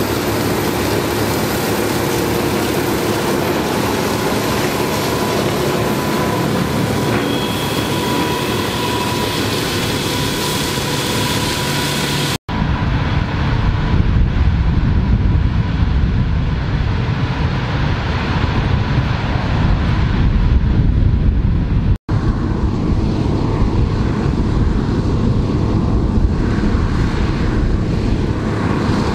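Fendt Vario 820 TMS tractor running under load while its front and rear Dragone butterfly mulchers shred a standing cover crop: a steady, dense machine noise with a thin whine over it. The sound changes abruptly twice and becomes louder and deeper after the first change.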